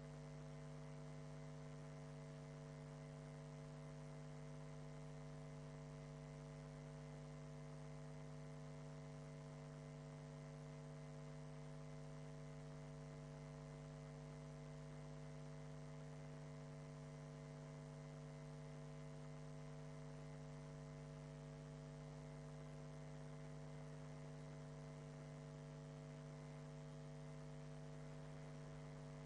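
Steady electrical mains hum with a buzzy edge and a faint hiss, unchanging, with no voices or room sound coming through.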